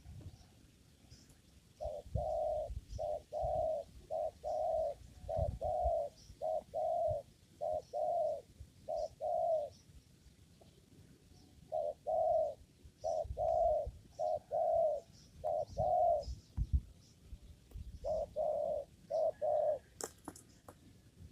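Spotted dove (tekukur) cooing: three runs of short repeated coos with pauses between them. Faint chirps of small birds underneath.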